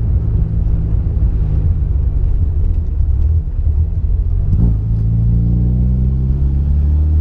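Holden Gemini's four-cylinder engine running while the car drives, with a low rumble. A brief knock comes a little past halfway, after which the engine note rises steadily as the car pulls.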